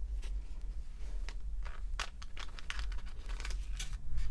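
Hands handling a clear plastic packaging tray that holds a fountain pen and ink cartridges: scattered light clicks and crinkles of the plastic, coming more often in the second half.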